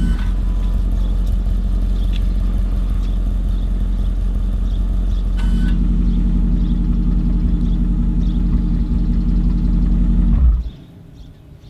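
Audi RS6 Performance's 4.0 TFSI twin-turbo V8 idling through an Akrapovic exhaust, with a click about five seconds in after which the idle is slightly louder. Near the end the engine is switched off and the sound stops abruptly.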